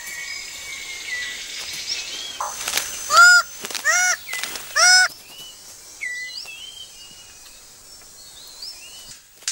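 Forest birds calling, short whistles and chirps from several birds, with three loud, harsh, honking calls about a second apart near the middle.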